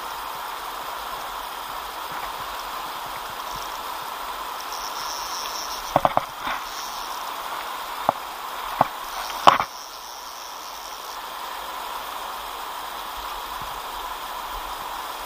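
Steady rush of a shallow river flowing over a stony bed, with a few sharp clicks about six to ten seconds in, the loudest of them near the ten-second mark.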